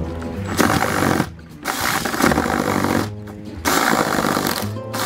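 Porter-Cable cordless jigsaw cutting a round hole through plywood sheathing, running in bursts and stopping briefly twice as the blade works around the curve.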